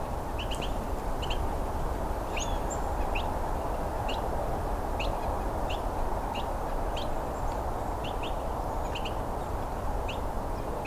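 Small songbirds giving short, high chip notes at irregular intervals, about one or two a second, over a steady low background rumble.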